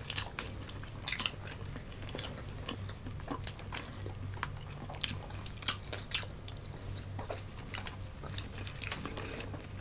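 Close-up eating sounds of people chewing food eaten by hand, with many short, sharp clicks and crackles scattered throughout.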